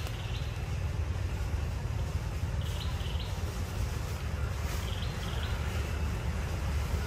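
Forest ambience: a steady low rumble under short high chirping calls. The chirps come in two brief groups, about three and five seconds in.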